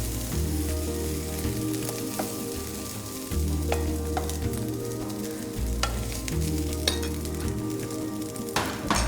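Rice sizzling in a hot pan as it is stirred, with scattered sharp clicks of the spoon against the pan.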